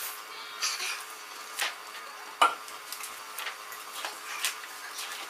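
Small plastic Lego Technic pieces clicking and clattering as they are handled and sorted on a wooden table, with one sharper click about two and a half seconds in.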